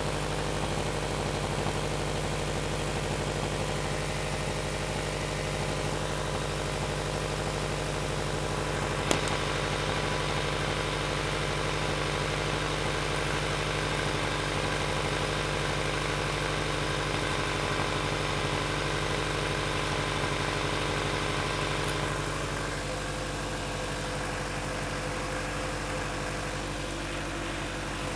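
Honda H22A four-cylinder engine idling steadily, heard from underneath the car close to the exhaust pipe. There is a single sharp click about nine seconds in, and the sound drops a little in level later on.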